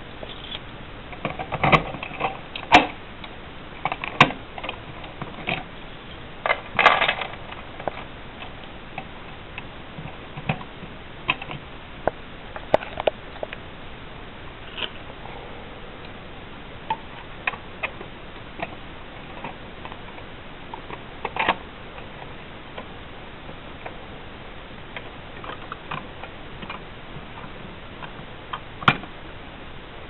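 Scattered clicks and knocks of a Simplex 4251-30 break-glass pull station being reset by hand as its handle and front cover are worked back into place. The clicks cluster in the first several seconds, then come singly, with a sharper one about three quarters of the way in and one near the end.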